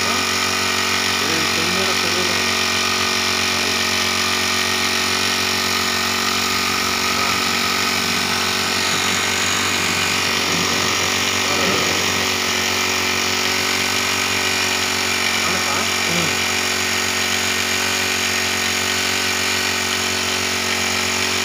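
Small four-stroke engine of a portable power sprayer running at a steady speed, driving the pump while water sprays from the lance.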